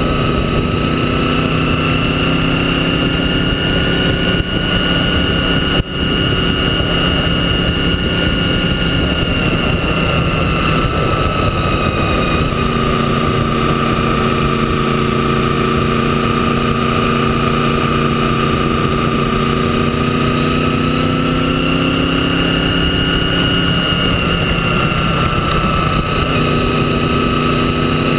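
Motorcycle engine running steadily at road speed with rushing wind noise. The engine note sags a little partway through and climbs back near the end, and there is one brief knock about six seconds in.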